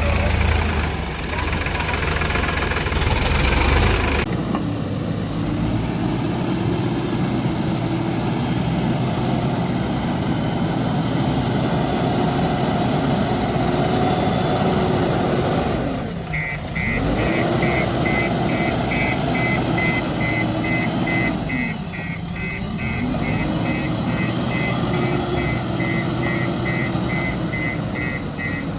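JCB 3DX backhoe loader's diesel engine running steadily under working load, easing off briefly twice. From a little past halfway, its reverse alarm beeps in an even, rapid series.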